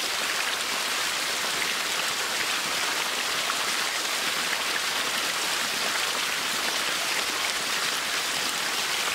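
Steady rush and splash of water pouring down a metal chute into a homemade pipe turbine and gushing out of its bottom into a creek.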